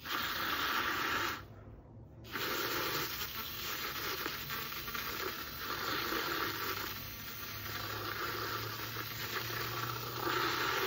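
Bean Envy handheld battery milk frother running, its spinning wire whisk churning hot milk in a cup: a steady frothy hiss over a faint motor hum. The sound breaks off for a moment about two seconds in, then runs on.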